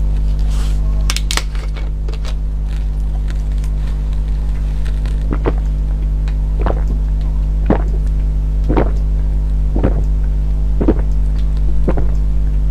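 A person gulping cola from a bottle, close to the microphone: a regular run of swallows about one a second, starting around five seconds in. A few soft clicks come near the start, and a steady low hum runs underneath.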